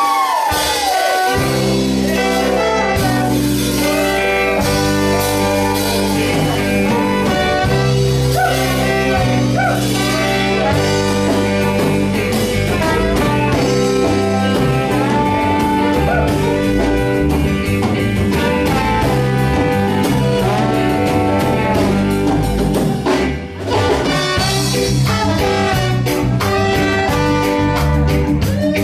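Live band playing an instrumental passage: saxophone and trumpet play the melody over bass guitar and drum kit. The music drops out for a moment about three-quarters of the way through, then the band comes back in.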